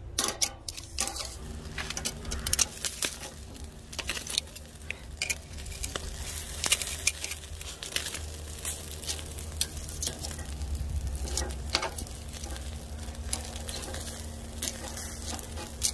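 Whole sea bass sizzling on a charcoal grill, with many sharp crackles and pops throughout and the odd clink of metal tongs on the grate.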